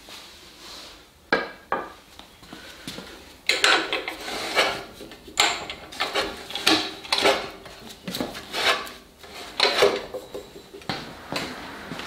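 Wooden boards being handled, knocked and set down on a drill press: two sharp knocks about a second in, then a run of clattering wood-on-wood and wood-on-metal knocks.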